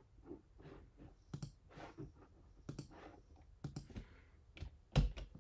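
Scattered clicks of a computer mouse and keyboard, about half a dozen spread over a few seconds, the loudest near the end.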